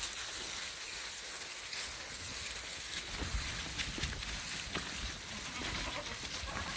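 A herd of goats bleating now and then, over scattered short clicks and rustles of steps on dry leaves and stones.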